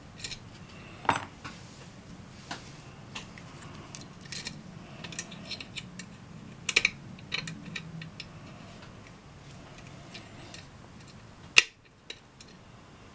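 Lock pick and tension wrench working the pins of a six-pin challenge lock cylinder: irregular small metallic clicks and crunching scrapes as the pins are lifted, with one sharper click near the end.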